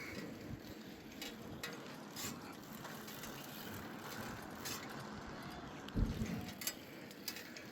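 Lowrider bicycle being ridden on the street: steady tyre-on-road rumble with scattered clicks and rattles from the chain and frame, and a thump about six seconds in.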